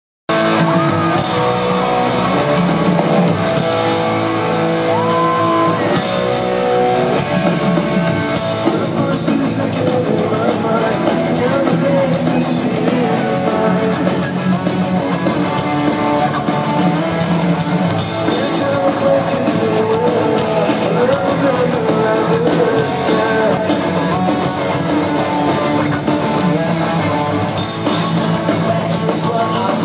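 Pop-punk band playing live in an arena: electric guitars, drums and sung lead vocals, heard with the echo of a large hall.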